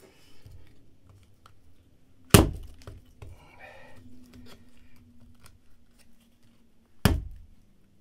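BeaverCraft AX1 hatchet striking down into a piece of wet, rotted wood on a wooden plank floor: two sharp strikes about four and a half seconds apart, with small clicks and knocks of wood in between.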